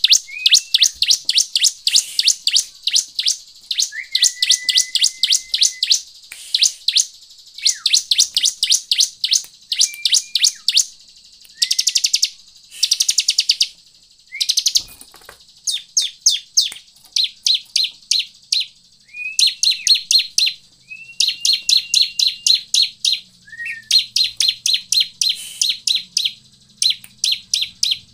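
Bar-winged prinia (ciblek) calling: rapid runs of sharp, high chirps, about seven a second, in bursts of one to two seconds, with a few short whistled notes between the runs.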